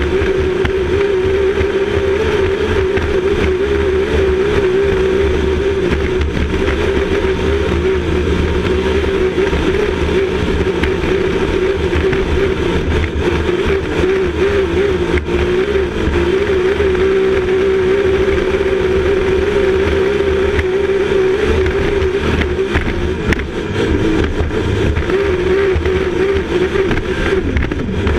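Grand Prix hydroplane's racing engine running hard at speed, heard from inside the cockpit: a loud, steady drone that wobbles slightly in pitch, over a constant rush of wind and water.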